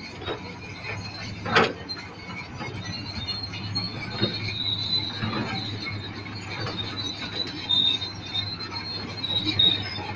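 Komatsu D155 crawler bulldozer working, its diesel engine running steadily under high squealing from the steel tracks. Scattered clanks, with one sharp knock about a second and a half in.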